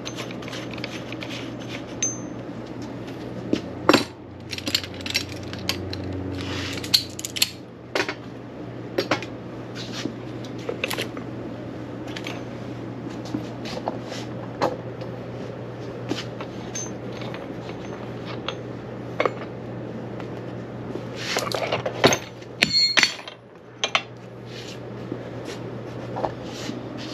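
Scattered metallic clinks and knocks of hand tools and parts while a pickup's front strut assembly is taken apart after the coil spring has been compressed, over a steady low hum.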